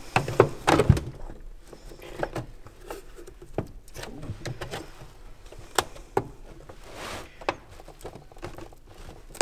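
Irregular plastic clicks and creaks as a screwdriver pries a BMW E39 headlight lens away from its glued housing, the sharpest clicks in the first second.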